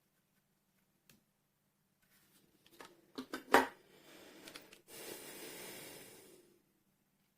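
Handling noise: a few sharp clicks and knocks, the loudest about three and a half seconds in, followed by about two seconds of rustling.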